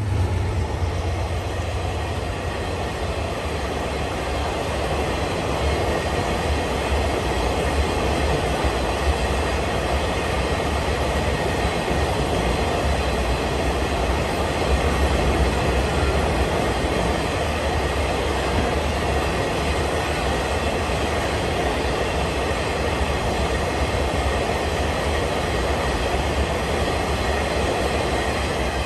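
Freight train rolling past steadily, with a constant deep rumble and the noise of steel wheels on the rails.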